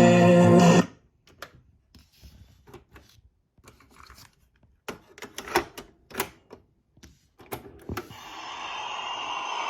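Music from the Sharp GF 8787 boombox cuts off about a second in. Scattered sharp mechanical clicks and clunks follow, and near the end a hiss with faint tones rises steadily.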